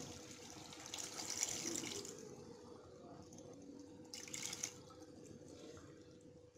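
Water being poured into a pan of chicken curry, a splashing stream for about two seconds that then dies down; a short burst of noise about four seconds in.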